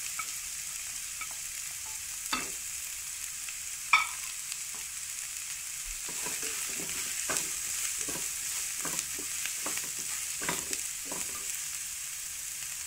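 Chopped onions sizzling in hot coconut oil in a non-stick frying pan, stirred with a wooden spatula. Two sharp knocks come in the first few seconds, the second the loudest, then a run of quick scraping stirs through the onions in the middle of the stretch.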